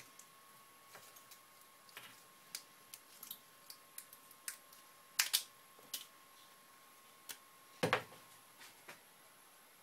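Small hand-handling noises of electronics wiring and plastic connectors: scattered light clicks and taps, with a louder clatter about five seconds in and a knock near eight seconds as something is set down. A faint steady tone runs underneath.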